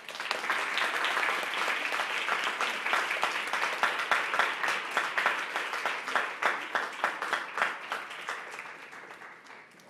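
Audience applauding at the end of a performance, starting suddenly and slowly dying away near the end.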